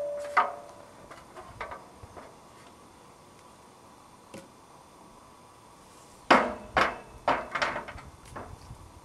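Aluminium ladder against a tree trunk clanking as a worker moves on it and handles rope: a few light knocks at first, then a quick cluster of five or six sharp, ringing metallic clanks about two-thirds of the way through.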